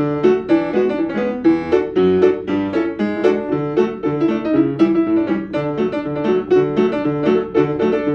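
A piano tune played at a steady pace: an even stream of notes over a repeating bass line.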